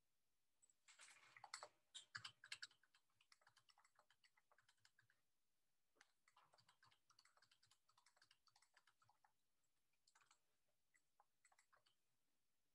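Faint typing on a computer keyboard: quick runs of light key clicks with short pauses between them.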